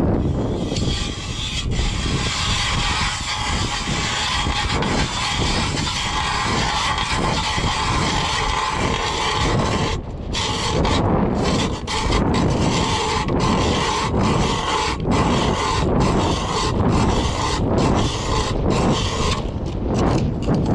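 Ice auger drilling a hole through lake ice, a steady grinding with a brief break about halfway through.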